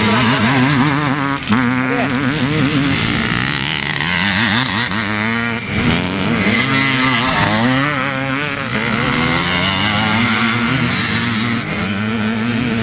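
Vintage motocross motorcycle engines revving hard as the bikes ride past. Their pitch rises and falls again and again with the throttle, and two or more engines sometimes overlap.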